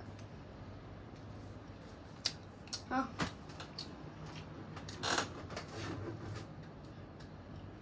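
A child handling and eating bread: scattered light clicks and rustles of food and fingers, with a brief vocal sound about three seconds in and a louder rustle about five seconds in, over a faint steady low hum.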